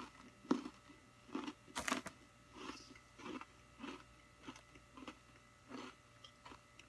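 Chewing a whole Oreo cookie with popping-candy cream filling: faint, regular crunching chews about every two-thirds of a second, loudest about two seconds in.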